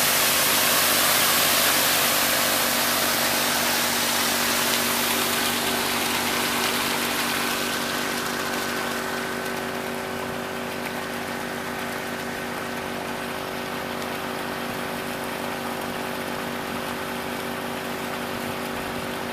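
Honda 2.5 hp engine pump running steadily while water from its hose rushes and splashes into a Keene highbanker's sluice. The rush of water fades after about eight seconds, and the engine's hum carries on.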